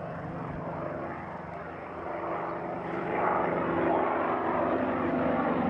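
P-51 Mustang's Rolls-Royce/Packard Merlin V-12 engine and propeller droning steadily as the plane flies past overhead, growing louder about three seconds in as it comes closer.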